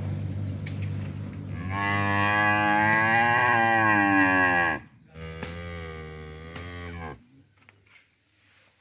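Cow mooing: a low, steady moo, then a long loud moo from about two seconds in that bends slightly in pitch, and a shorter moo that ends about seven seconds in.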